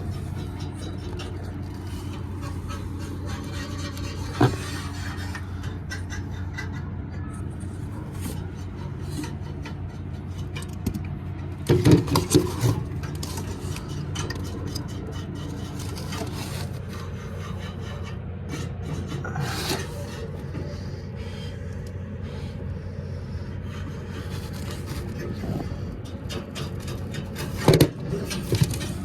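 Scraping and rubbing of metal as gas burners pulled from a rooftop heating unit are cleaned, with a few sharp clanks, the loudest a cluster about twelve seconds in, over a steady mechanical hum.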